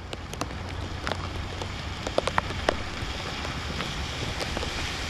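Heavy rain falling on wet asphalt, with many close, sharp drop hits scattered through it and a low steady hum underneath.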